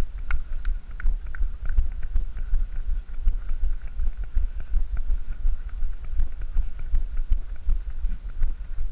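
Wind buffeting the microphone of a camera carried by a runner, a steady low rumble, with regular knocks about three a second from the runner's footfalls jolting the camera.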